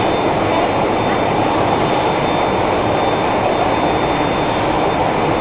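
Blown film extrusion line running: a steady, loud rush of machine noise with a faint high whine.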